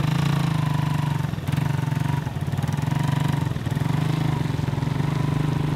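Small underbone motorcycle engine running at a steady speed, heard from on board while carrying passengers, with an even, fast-pulsing hum.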